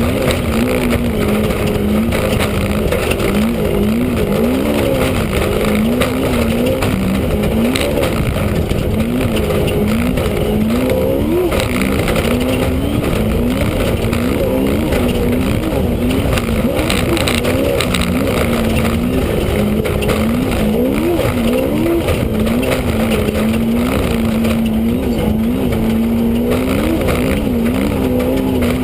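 Off-road race vehicle driven hard, heard from inside the cockpit: the engine note climbs and drops over and over as the throttle is worked, over a constant loud rumble with scattered knocks and rattles.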